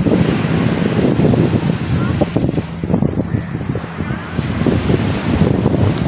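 Wind buffeting the phone's microphone in uneven gusts, over the wash of small waves on the beach.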